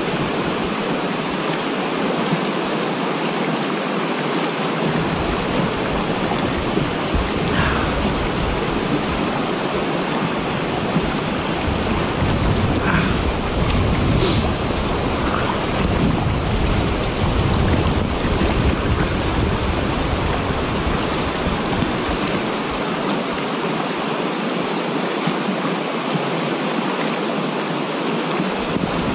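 Steady rush of water spilling over a concrete dam spillway and across its apron. Through the middle, wind buffets the microphone with a low rumble.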